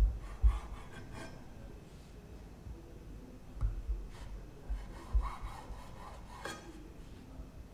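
Kitchen knife sawing through the crusts of white sandwich bread on a wooden cutting board: scratchy rasping strokes in three short spells, with a few dull knocks on the board.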